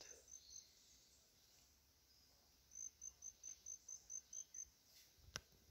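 Faint cricket chirping: runs of short, evenly spaced high chirps, about four or five a second, starting and stopping. A single sharp click near the end.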